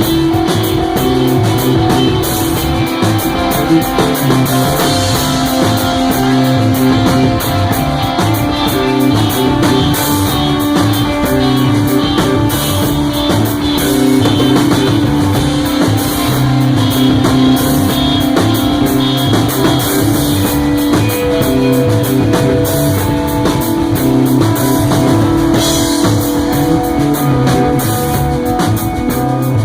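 Rock band playing live: sustained electric guitar notes over bass and a drum kit, loud and steady throughout.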